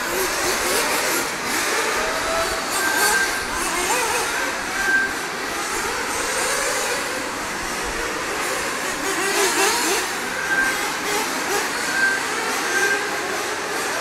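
Several nitro RC buggy and truggy engines running, their pitch rising and falling quickly as the cars rev through the corners and straights. A few short high beeps sound now and then.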